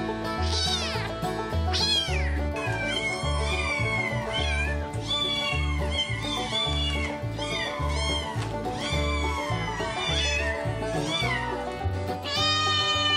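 Kittens and a cat meowing, many high calls that rise and fall one after another, over background music with a steady pulsing bass beat.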